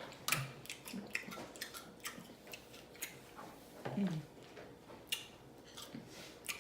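Close-up mukbang eating sounds of a person eating crab: irregular wet smacking and chewing clicks, with a short falling "mm" from the voice about four seconds in.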